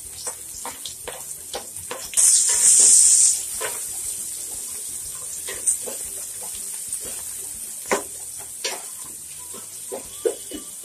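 Chopped onions sizzling in hot oil with whole spices in a metal pan, freshly added and being stirred with a spatula that clicks and scrapes against the pan. A louder burst of sizzle starts about two seconds in and lasts about a second.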